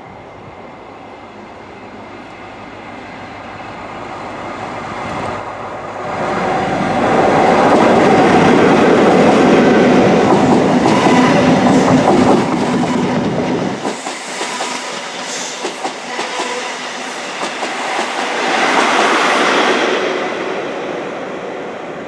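A High Speed Train with Class 43 diesel power cars passing at speed. The leading power car's engine rumble builds and peaks about a third of the way in and cuts off sharply. The coaches' wheels then clatter past, and the rear power car gives a second peak near the end before the sound fades.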